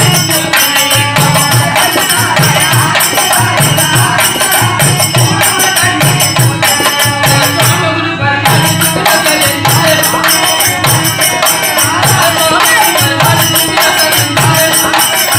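Live devotional Harikatha music: a steady drum rhythm with small hand cymbals jingling over it.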